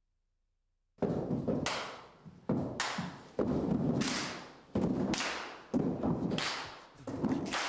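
A group of people clapping and stomping in rhythm: sharp claps and thuds about once a second, each ringing on in the room. It starts about a second in.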